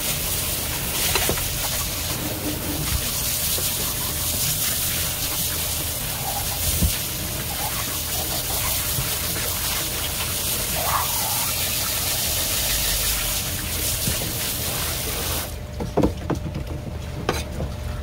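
Tap water spraying from a faucet's spray nozzle onto a plastic cutting board, rinsing off fish blood, until it is shut off suddenly about two and a half seconds before the end. Then two sharp knocks.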